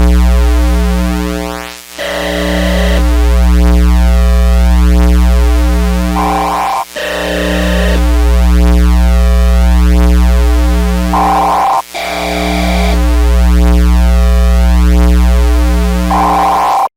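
Loud synthesizer music: a heavy bass drone under a repeating electronic loop that starts over about every five seconds, each time after a brief dropout. It cuts off suddenly just before the end.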